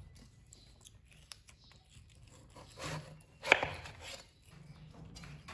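Crisp crunching of a baby macaque biting into peeled gourd flesh: two short crunches about three seconds in, the second the louder, then a few fainter ones.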